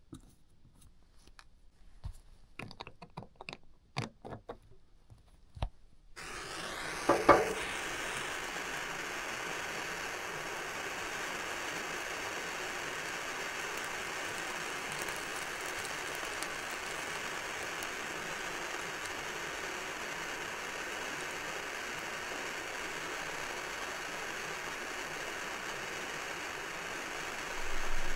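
Faint clicks and knocks of handling, then a plumber's blowtorch hisses on, lights with a sharp pop about seven seconds in, and burns with a steady hiss that swells briefly near the end.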